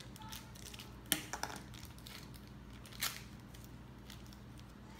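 Small plastic toy packaging being unwrapped by hand: faint crinkling and scattered clicks, with two sharper clicks about a second in and about three seconds in.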